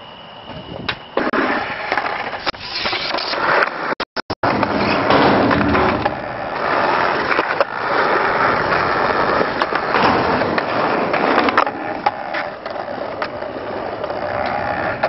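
Skateboard wheels rolling loudly over rough concrete, broken by sharp clacks of the deck popping and landing. The sound cuts out for a moment about four seconds in.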